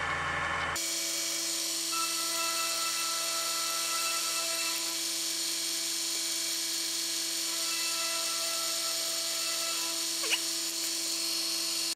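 Mini mill's spindle motor running at speed, a steady high-pitched whine with hiss, while the cutter faces excess cured JB Weld epoxy off a small steam engine cylinder. A low hum drops out abruptly under a second in, and there is a brief chirp about ten seconds in.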